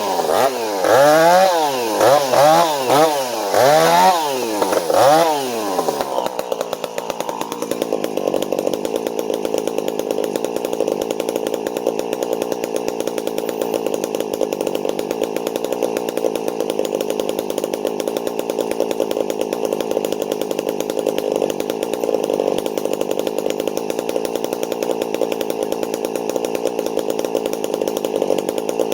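Two-stroke gas chainsaw revved up and down about once a second for the first six seconds, then held at steady high throttle in a long cut through the trunk of a downed red elm.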